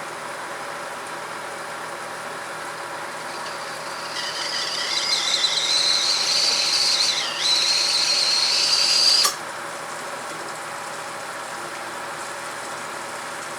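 Steam whistling from water heating on the stove: a high whistle rises in about four seconds in, wavers with a brief dip, and cuts off suddenly about nine seconds in, over a steady low hum.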